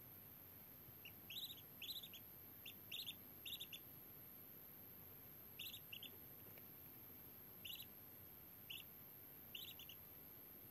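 Duckling peeping: short, high peeps, often two or three in quick succession, coming thickly at first and then spaced out every second or two.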